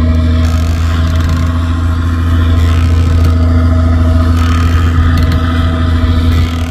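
Fishing boat's engine running steadily, a loud, even low hum heard from on board, with a hiss of water and wind over it.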